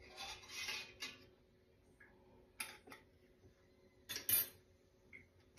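Light kitchen handling noises at a stainless steel pot: a brief rustle at the start, two light clicks a little past halfway, then a short clatter about four seconds in.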